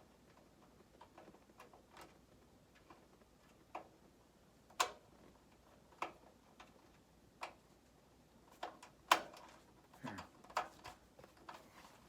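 Irregular small clicks and taps of a screwdriver working a power supply mounting screw into the back of a metal computer case. The screw is going in stiffly, as the case's powder-coated threads can make it.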